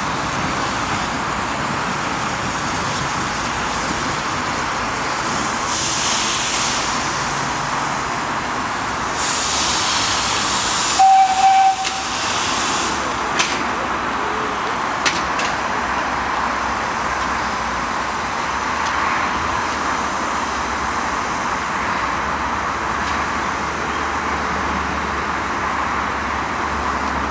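Small industrial saddle-tank steam locomotive hissing steadily as it lets off steam, with a few louder surges of hiss. About eleven seconds in comes a short, single-note blast on the steam whistle, the loudest sound here.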